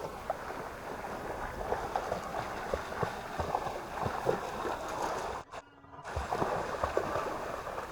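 Water of a shallow river splashing and burbling, with small irregular splashes; the sound cuts out briefly about two-thirds of the way through.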